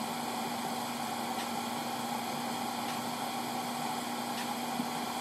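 Steady hiss with a low, even hum: the recording's background noise in a gap between voices.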